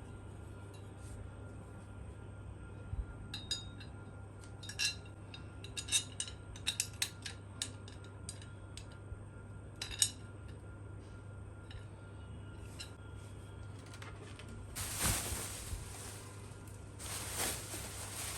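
Scattered light clinks and clicks of small hard objects being handled, several in quick succession from a few seconds in, then two longer bursts of rustling, scraping noise near the end, over a steady low hum.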